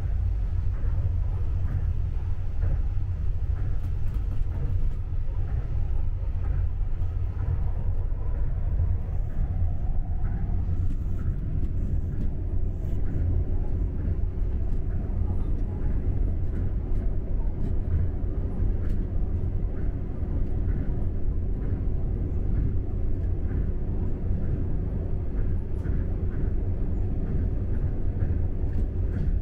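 Steady low rumble inside a Tokyo Monorail car running along its elevated guideway. A faint steady tone joins the rumble about ten seconds in.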